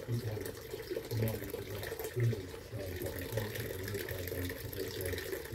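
Garden water fountain running, with water trickling and bubbling steadily.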